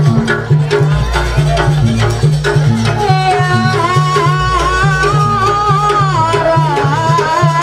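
Traditional Banyuwangi music for a barong and kuda lumping trance dance: drums beat a repeating rhythm under a wavering melody line held on long notes that slide from one pitch to the next.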